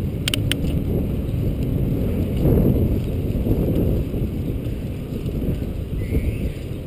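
Wind rushing over the microphone of a bicycle in motion, with low rumble from the ride; it swells about two and a half seconds in. A couple of light clicks come near the start.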